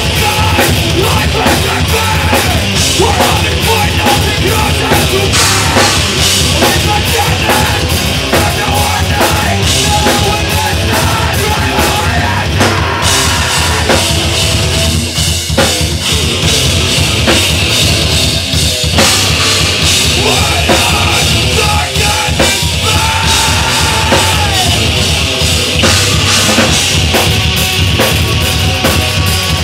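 Metalcore band playing live and loud: distorted electric guitar, electric bass and a drum kit, continuously.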